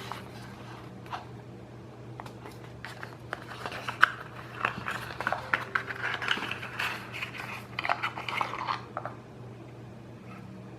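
Hands handling small plastic and cardboard packaging parts during an unboxing: a rapid run of light clicks, taps and rustles, busiest in the middle and dying away near the end, over a steady low hum.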